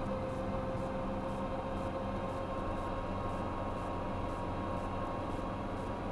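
1984 Chevy S10 pickup's engine running steadily as the truck drives up the driveway, heard from inside the cab.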